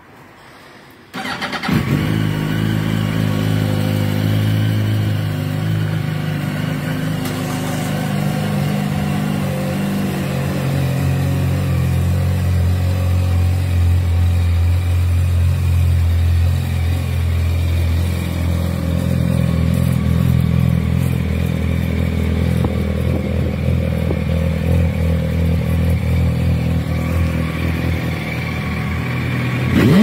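Yamaha YZF-R1 inline-four on its stock exhaust, starting up about a second in and then idling steadily, with one quick throttle blip at the very end.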